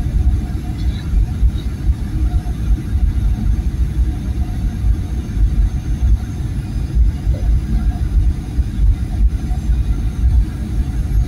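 Cabin noise inside a Boeing 737-900 on final approach: a continuous low rumble of airflow and its CFM56-7B engines, heard from a window seat over the wing.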